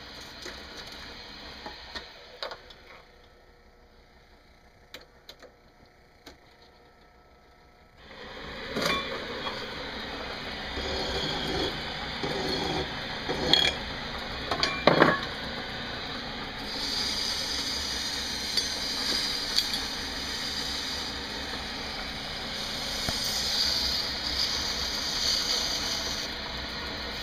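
Small metal lathe in use: a few light metal clicks, then about eight seconds in the machine starts running with a steady noise, sharp clinks of metal parts and tools over it, and a hissing scrape of metal being worked from about halfway on.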